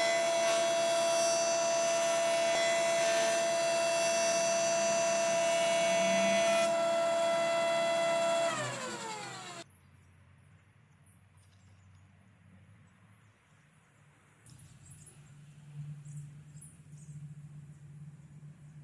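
Jointer running at a steady speed, a whine made of many tones. About eight and a half seconds in it is switched off and spins down, its pitch falling away over about a second, and then it is near quiet.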